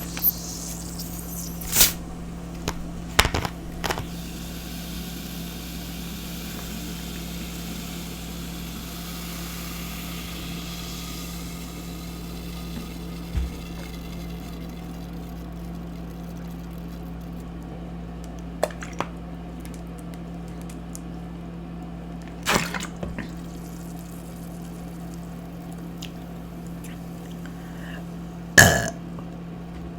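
A person eating and drinking: scattered wet mouth sounds and short sharp smacks over a steady low hum, with a louder sound near the end.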